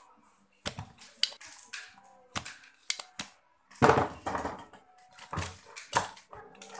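Spring-loaded solder sucker (desoldering pump) snapping as it is cocked and fired, sharp single clicks every second or so, while a component of the horizontal section is desoldered from a CRT TV circuit board. A louder clatter of knocks about four seconds in as the board is handled.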